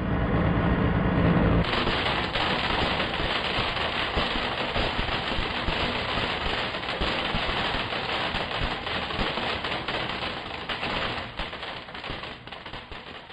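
Blender motor running with a steady hum, then from about a second and a half in a dense, rapid rattling as the blades smash a small block dropped into the jar. The clatter thins out and fades near the end.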